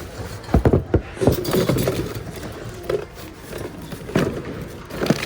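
Assorted thrift goods knocking and clattering against each other as hands rummage through a bin, a string of irregular knocks and scrapes.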